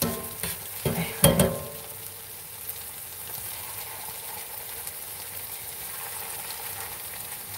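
Churro batter deep-frying in hot oil in a cast-iron skillet: a steady sizzle. A few short knocks sound in the first second and a half.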